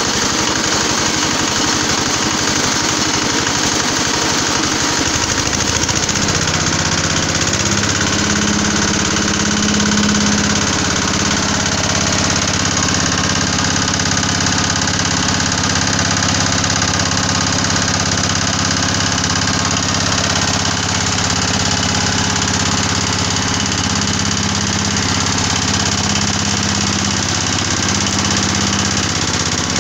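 Mini palm-oil screw press running while pressing palm fruit into crude palm oil, a loud continuous machine noise. For the first few seconds it has a fast, even knocking; about six seconds in this gives way to a steadier drone with a clear low pitch.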